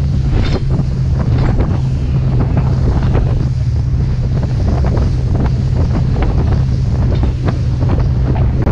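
Motorboat running across choppy lake water: a steady low engine hum under heavy wind buffeting on the microphone, with water splashing against the hull.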